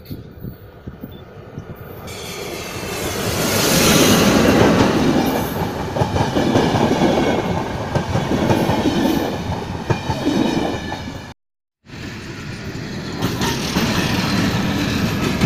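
A locomotive-hauled passenger train passing close by, its wheels clattering over the rail joints, loudest about four seconds in as the locomotive goes by and then continuing as the coaches roll past. It cuts off abruptly just before twelve seconds, and a steadier rail and engine sound follows, from diesel locomotives on the station tracks.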